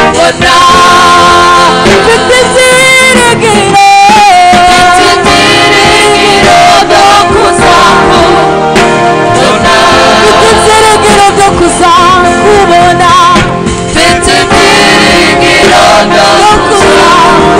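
Worship team of men and women singing a Kinyarwanda gospel song together into microphones, amplified and loud.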